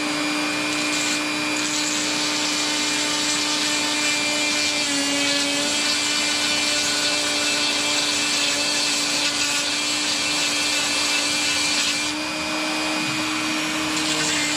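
Electric grinder running at a steady pitch while it grinds down the steel jaws of blacksmith tongs. The high grinding hiss eases off for a couple of seconds near the end, then comes back as the metal is pressed to the wheel again.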